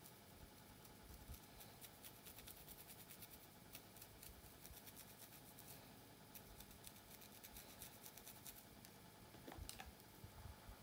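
Faint fingernail scratching and scraping along a scalp parting, a run of crisp little crackles. Near the end comes a louder rub of a hand moving through the hair.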